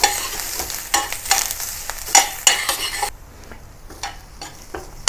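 Sliced onion, garlic and ginger sizzling in oil in a stainless steel skillet as they are sautéed until soft. A metal spoon stirs them, scraping and tapping against the pan. The sizzle quietens about three seconds in.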